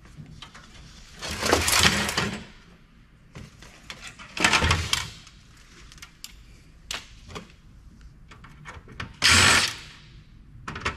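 A cordless power driver running in three short bursts, backing out screws from a computer's boards, with small clicks of handling between the runs.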